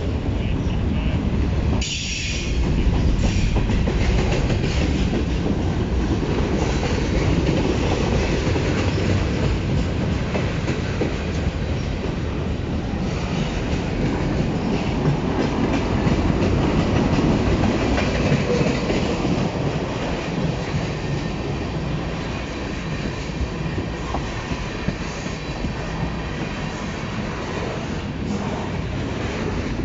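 A CN mixed freight train of autoracks, grain hoppers, tank cars and boxcars rolling steadily past at close range. Its wheels give a continuous rumble and clatter on the rails, with no let-up.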